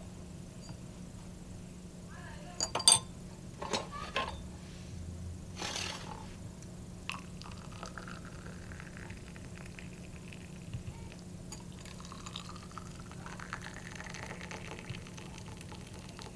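A few sharp clinks of a spoon and small glass tea glasses on a metal tray as sugar is spooned in, the loudest about three seconds in. Then tea is poured from a teapot into the glasses, a faint stream whose pitch rises as each glass fills.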